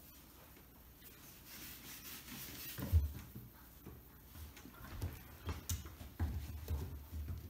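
Four-week-old golden retriever puppies scrambling about a PVC play frame hung with wooden dowels: irregular soft thumps, knocks and rubbing as they bump the board and dowels, the loudest thump about three seconds in and more frequent from about five seconds on.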